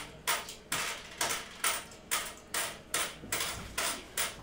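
A quick, even series of sharp taps, about two a second, each with a short rustling tail.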